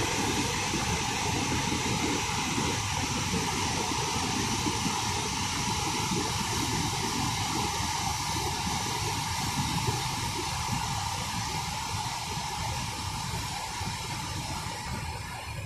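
Flood-swollen, silt-laden mountain river rushing over boulders in a steady, loud wash of white-water noise. It grows gradually fainter over the last few seconds.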